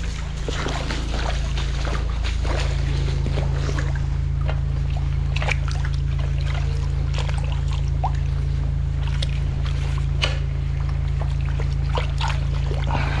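Steady low hum of a drain jetter's engine running, with water sloshing and splashing as a jetter hose is worked by hand down into a flooded, submerged drain.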